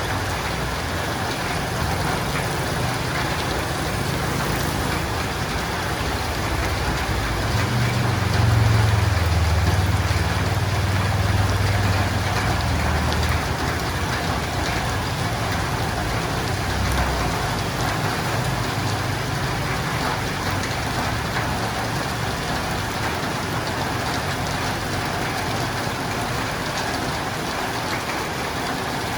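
Steady heavy rain falling on a roof. A low rumble swells for several seconds about eight seconds in.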